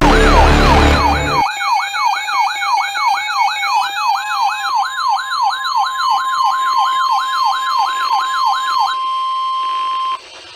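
Electronic siren wailing up and down about three times a second, with a loud low rumble under its first second and a half. About halfway in, the steady NOAA Weather Radio warning alarm tone joins; it carries on alone after the siren stops and cuts off suddenly just before the end.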